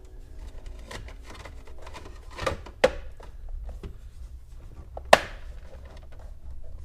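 Plastic trim and a Phillips screwdriver being handled while the trim is screwed back together: a run of light clicks and rattles, with two sharper knocks about three and five seconds in.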